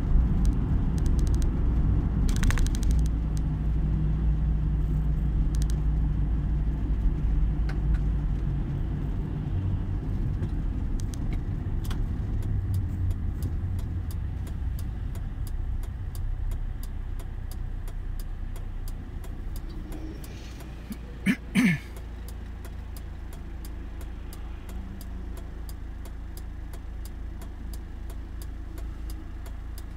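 Car cabin road and engine noise that fades over the first half as the car slows to a stop in traffic, leaving a quieter idle with a steady, even ticking. Two short, loud sounds come about two-thirds of the way through.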